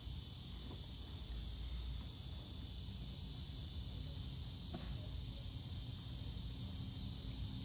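Steady high-pitched insect chorus over a low rumble, with a single faint knock about five seconds in.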